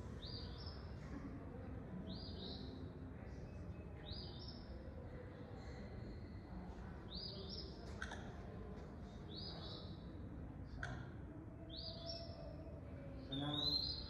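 Recorded eastern phoebe song played over loudspeakers: a short high note that steps up in pitch, repeated about every one and a half to two seconds. Two sharp clicks come about eight and eleven seconds in, and a louder, different note sounds near the end.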